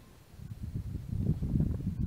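Low, irregular rumbling and rustling right at the microphone, starting a moment in and growing louder after about a second.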